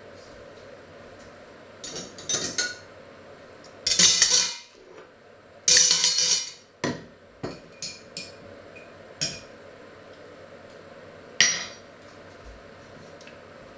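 Metal spoons and cutlery clattering and clinking as they are dropped into a stainless steel pot. The two loudest clatters come about four and six seconds in, followed by several lighter clinks.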